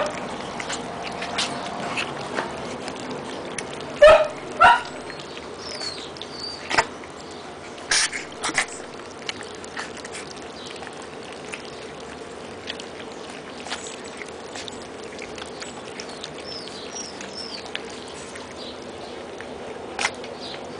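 Four-week-old Siberian husky puppies eating kibble from a tray: a patter of small clicks and crunches from the food. There is a short yelp at the start and two sharp yelps about four seconds in, and a few faint high chirps.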